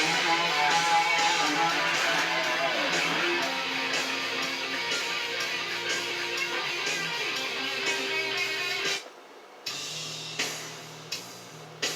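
Guitar music with strummed chords, which cuts off sharply about nine seconds in; a few quieter passages follow.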